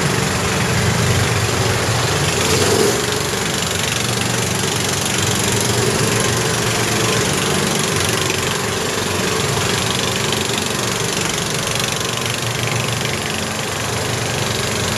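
Off-road buggy engine running steadily while driving, heard from on board, under a constant rushing noise.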